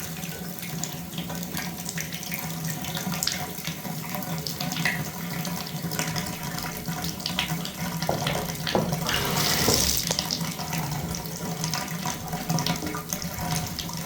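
Water running from an old shower valve that won't shut off, with scattered small clicks and knocks, and a louder rush about nine to ten seconds in.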